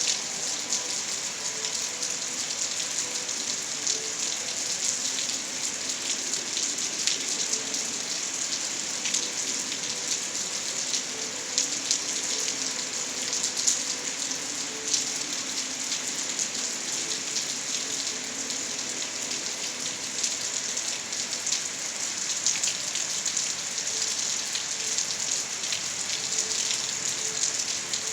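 Steady rainfall: an even hiss of rain with many individual drops ticking sharply on a hard surface.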